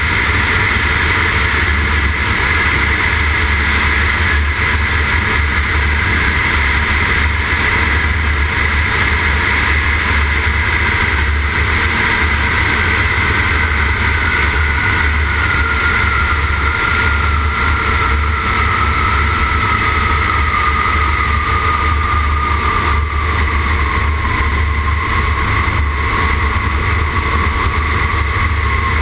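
Grumman Ag Cat biplane's engine and propeller running in flight, heard from a camera on the wing's spray boom, so heavy wind rush and buffeting lie under it. Over the landing approach a whine slowly falls in pitch while a higher tone holds steady.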